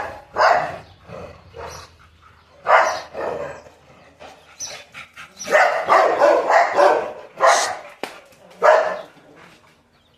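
Dogs barking in separate short bursts, with a run of barks in quick succession about halfway through.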